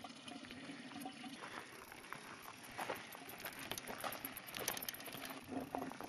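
Spring water pouring from a stone spout and splashing into a rock basin: a steady trickle with irregular small splashes.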